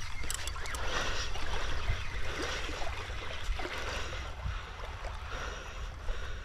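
Small waves lapping on a sandy shore: a steady, soft wash of water.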